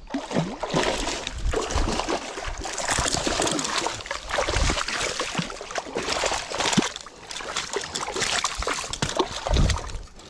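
A hooked bass splashing and thrashing in shallow water at the edge of the bank as it is landed, a rapid, irregular run of splashes.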